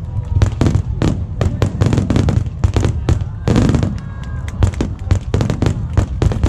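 Fireworks display: aerial shells bursting in a rapid, continuous run of bangs and crackles, several a second, with a few whistling tones about halfway through.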